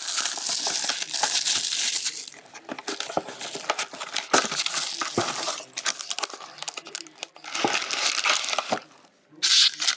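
Plastic wrapping on trading card packaging crinkling and tearing as a box of basketball card packs is opened and handled. There is a long stretch of crinkling at first, more around eight seconds in, and a short loud burst near the end, with scattered small clicks in between.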